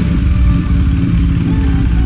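KTM RC 390's single-cylinder engine idling steadily, running again after about a year in storage.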